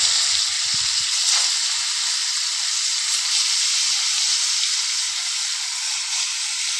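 Fish steaks frying in hot oil in a kadai: a loud, steady sizzle.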